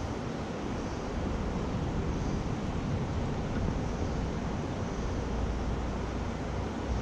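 Wind buffeting the microphone: a steady rushing noise with uneven low rumbling, and no distinct knocks or knife sounds standing out.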